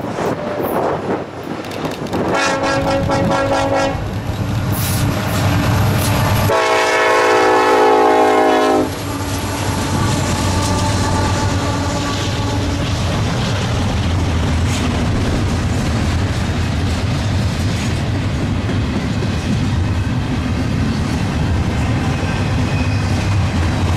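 Nathan K5LLA air horn on a Norfolk Southern SD70ACE locomotive sounding two blasts, a shorter one about two seconds in and a longer, louder one ending about nine seconds in. The locomotives' diesel engines and the intermodal cars' wheels then rumble and clack steadily past the crossing, with wind buffeting the microphone at the start.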